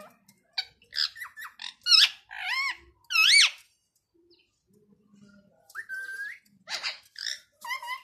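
Indian ringneck parakeet calling in a run of short, high, swooping chirps and squawks, falling silent for about two seconds midway, then starting up again.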